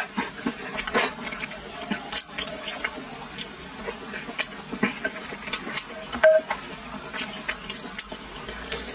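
Close-miked eating sounds: a run of irregular wet clicks and lip smacks from a mouth chewing food.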